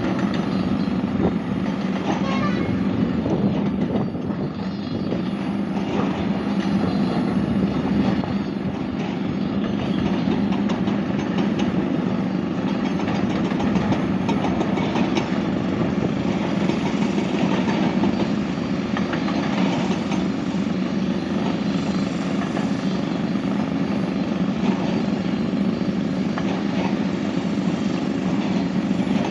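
A large heavy machine or rail vehicle running steadily, with a strong low hum and constant rumble and rattle.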